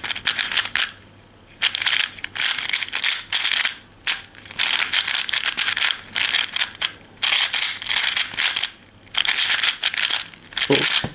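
Plastic 3x3 speed cube being turned fast in a timed solve: rapid clicking and clacking of the layers in quick flurries, broken by a few short pauses.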